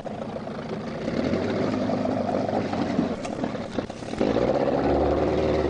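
Boat engine running steadily, louder from about four seconds in.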